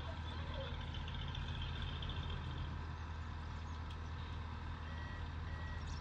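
Heavy diesel machinery running with a steady low drone. Near the end a reversing alarm beeps about three times, typical of the loaded dump truck backing up.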